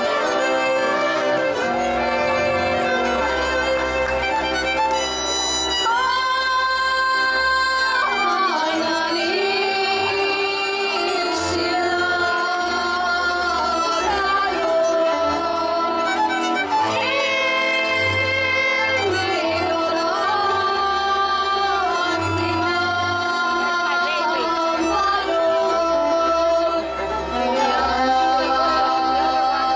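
Transylvanian folk band playing a Kalotaszeg folk song: fiddle over a moving bass line, with girls singing the melody.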